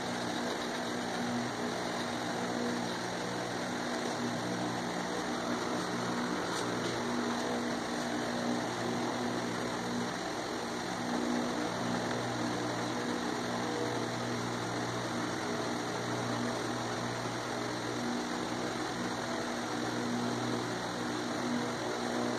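Steady background hum with a hiss, unchanging throughout.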